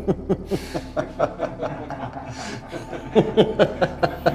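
A man laughing in short, rapid chuckles, several a second, that grow louder about three seconds in.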